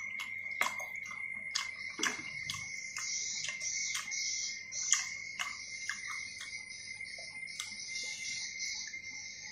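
Spoon and fork clicking and scraping against a bowl of noodle soup while stirring and lifting noodles: irregular light taps about once or twice a second. Behind them is a steady high-pitched whine, joined about two and a half seconds in by a high hiss.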